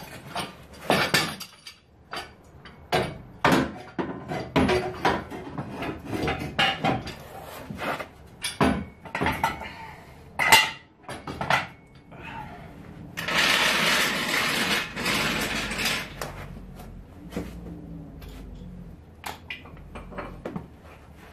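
Steel receiver hitch bar and mounting brackets clanking and clinking as they are handled and lifted onto the mounting studs, a string of sharp metal knocks. About two-thirds through comes a few seconds of dense scraping rush.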